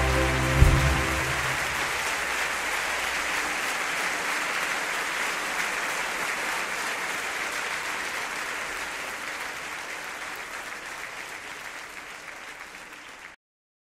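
The last note of a song ends about a second in, and audience applause follows, slowly fading away until it cuts off abruptly near the end.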